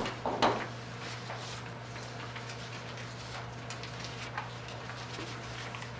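Room tone: a steady low electrical hum, with a few faint scattered clicks and a slightly louder click about half a second in.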